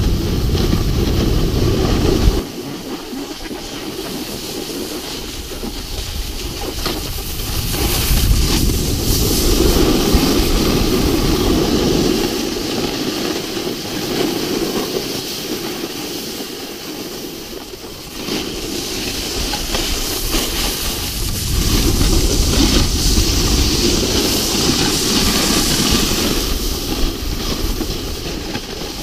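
Wind buffeting the GoPro microphone, a low rumble that surges and eases as the rider's speed changes, over the scraping hiss of sliding down packed, groomed snow. The rumble drops off suddenly about two seconds in and builds again later.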